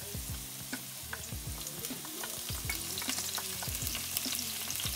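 Chopped spring onion and red chillies sizzling and crackling in hot oil in a stainless-steel wok, with a wooden spatula scraping the chillies in from a bowl. The sizzle grows louder toward the end as the chillies hit the oil.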